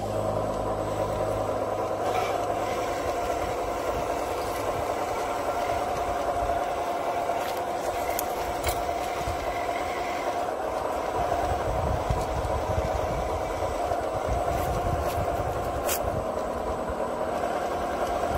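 Radio-controlled scale CAT D9 crawler tractor driving steadily while towing a loaded log trailer. Its drive gives a steady whirr, its tracks clatter over dry dirt, and a few sharp clicks come through.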